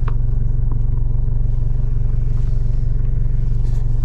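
Steady low rumble of a motor vehicle running, holding an even drone with no change in speed.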